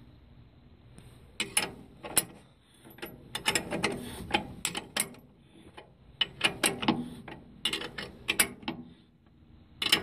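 Runs of quick metallic clicks and clinks, like a ratcheting wrench, as bolts are worked on a brake caliper bracket bolted to a car's front spindle. There are two bursts of clicking with a short pause between them.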